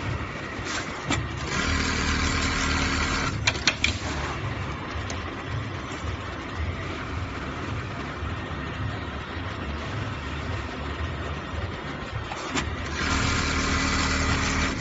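Automatic laser-cut zipper pocket machine running its cycle: a steady machine hum with two louder stretches of motor whine, near the start and near the end, and a few sharp clicks in between.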